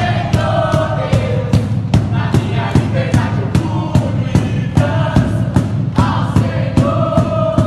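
Live worship music: a band with a steady drum beat under many voices singing together.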